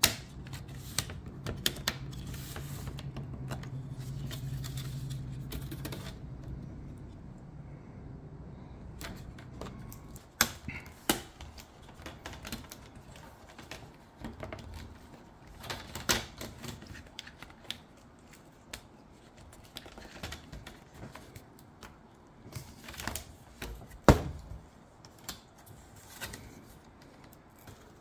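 Plastic display bezel of an HP ProBook 640 G2 laptop being pried loose with a pry tool: irregular clicks and snaps of the plastic as it comes away, a few of them sharper. A low hum sits under the first eight seconds or so.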